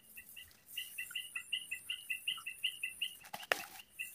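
A rapid run of short high chirps from a small animal, about five a second, with a brief rustle about three and a half seconds in.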